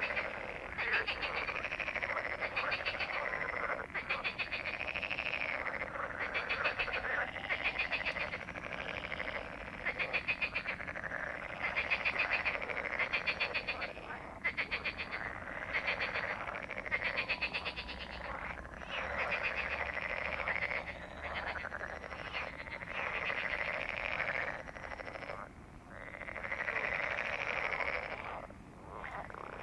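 A chorus of frogs croaking in a breeding chorus, many rapid rattling calls overlapping almost without pause, briefly thinning twice near the end.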